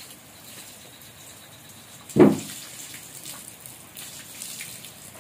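Water running from a garden hose and splashing onto a wet concrete floor, with scattered drips and small splashes. One sudden loud thump about two seconds in.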